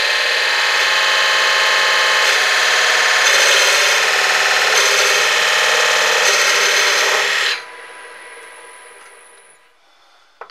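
Turning tool cutting into a spinning walnut and zebrano blank on a wood lathe: a loud, steady cut over the lathe's hum. The cut stops about seven and a half seconds in, leaving the lathe running more quietly until it fades out about two seconds later.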